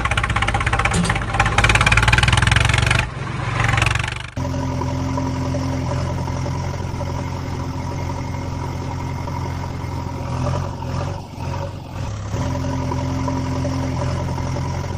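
Dubbed vehicle engine sound effect. For the first three seconds it is a fast, clattering run. About four seconds in it gives way to a steady running engine that dips briefly in the last third.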